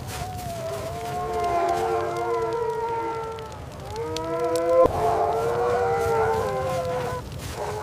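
A wolf pack howling in chorus: several long howls at different pitches overlapping and gliding slowly, over a low rumble, with a brief sharp snap about five seconds in.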